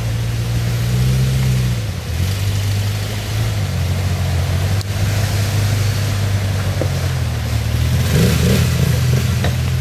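A 4x4's engine running at low revs, revving up briefly about a second in and settling back, with another slight rise near the end.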